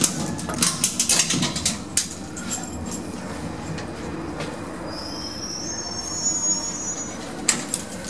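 Metal clicks and rattles of a metro lift car's rear rescue door being worked open by hand with a triangle key, over a steady rumble. A thin high squeal comes in about five seconds in, and sharp metal clatter returns near the end.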